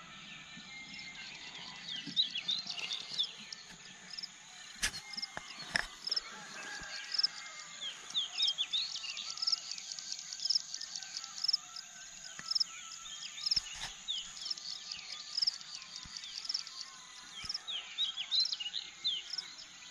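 Morning chorus of small birds chirping and twittering over a steady high insect drone in farmland. A few sharp knocks come about five, six and fourteen seconds in.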